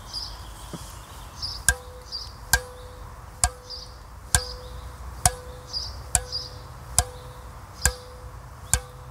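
Tennis racquet string bed with polyester mains and multifilament crosses being struck nine times, about once a second. Each strike is a sharp click with a short ring at one steady pitch.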